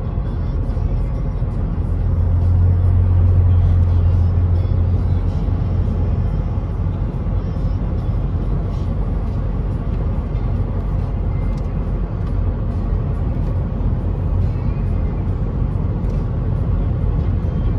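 Steady road and engine noise heard inside a vehicle's cabin at highway speed, mostly a low rumble. A louder low drone swells from about two seconds in and eases off a few seconds later.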